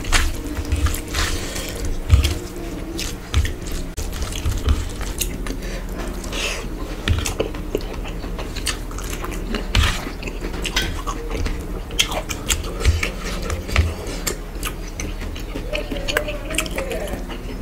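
Rice and curry being mixed by hand on a steel plate: wet squishing and irregular clicks of fingers tapping and scraping the metal.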